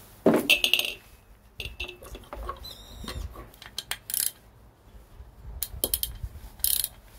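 Metal clinks and rattles of hand tools on a scooter horn and its mount, with a few short tinny dings from the horn as it is tried while its adjusting screw is set. The new horn only taps weakly instead of blaring: it turns out to be faulty.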